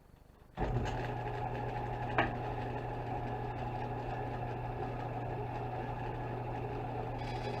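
A bandsaw switched on about half a second in, its motor coming up to speed at once and then running steadily with a low hum and blade whir. A short tick about two seconds in, and a brighter hiss joins near the end.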